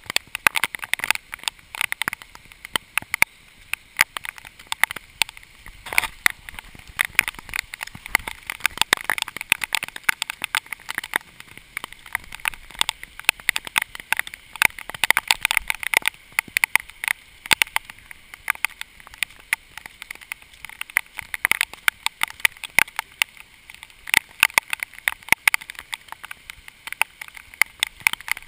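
Heavy rain: a dense, irregular patter of raindrops striking close to the microphone, over a steady hiss of the downpour.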